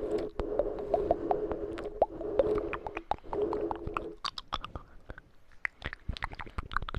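Close-miked ASMR mouth sounds and tapping: many quick wet clicks and taps. Under them runs a steady low tone that breaks off briefly a few times and stops about four seconds in, leaving only the clicks.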